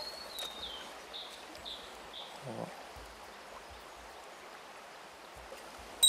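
A river flowing with a steady rushing sound. Over it a bird gives a quick run of about five short, high, falling notes in the first couple of seconds.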